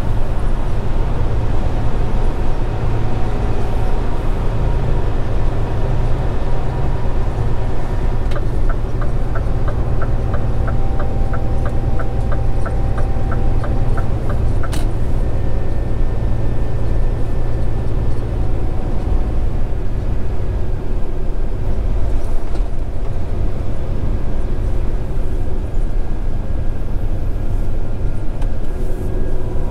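Scania R410 truck's diesel engine running steadily at road speed, with tyre and road noise. Partway through, a run of quick, even ticks, about three a second, lasts some six seconds and ends in a single sharper click.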